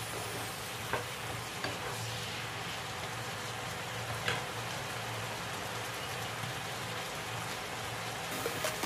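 Chicken and lettuce stem simmering and sizzling in a frying pan with a little broth: a steady hiss, with a few light knocks of a spatula against the pan now and then and a low steady hum underneath.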